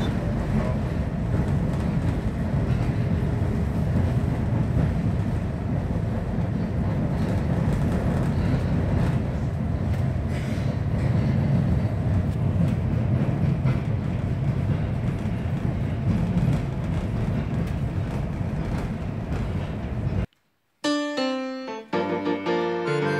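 Class 670 double-deck diesel railbus running along the line, heard from on board: a steady low rumble of engine and wheels on the rails. About three seconds before the end it cuts off abruptly, and piano music starts.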